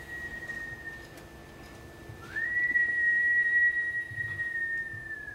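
Long whistled notes, each scooping up into a high held pitch. One note fades out about a second in. The next slides up about two seconds in, holds for nearly three seconds and sags slightly at the end.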